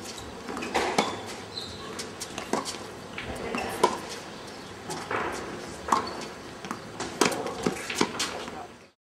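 Tennis ball being hit by racquets and bouncing on a hard court during a rally: sharp pops about a second apart. The sound cuts off suddenly near the end.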